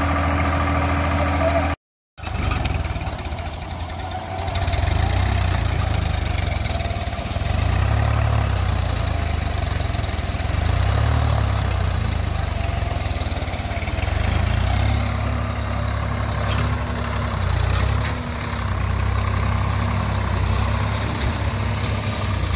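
Swaraj 735 tractor's three-cylinder diesel engine running, a low rumble that swells and eases every few seconds. The sound cuts out completely for a moment about two seconds in.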